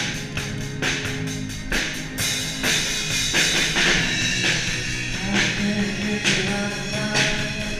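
Live rock band playing: drum kit with cymbals, electric bass, electric guitar and keys, heard from on stage right beside the bass. About two seconds in, the cymbals thicken into a steady wash.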